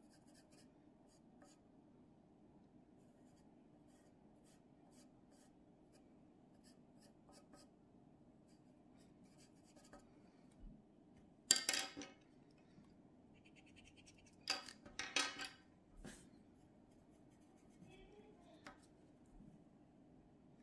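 Pencil scratching on paper as a drawing is worked on: faint short strokes, then two louder bursts of quick scribbling about halfway through and again a few seconds later.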